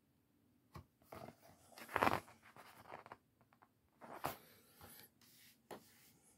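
Pages of a book being turned and handled: several bouts of paper rustling and sliding, the loudest about two seconds in, with a few short clicks.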